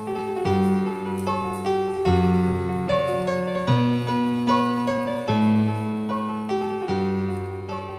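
Slow piano music: held low chords with a melody of single notes over them.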